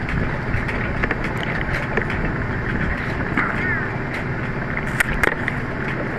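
Strong wind rushing over the microphone aboard a small sailboat under way in heavy weather, a steady loud rush with scattered knocks and clicks.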